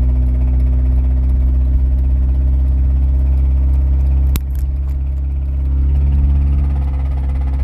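1999 Honda Civic's four-cylinder engine running steadily with rod knock, the sign of a failing connecting-rod bearing. A sharp click comes about four seconds in, after which it runs a little quieter.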